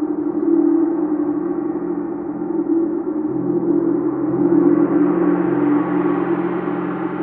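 Chau gong played continuously: a sustained ringing wash with no distinct strikes. Its higher overtones build and grow brighter about halfway through.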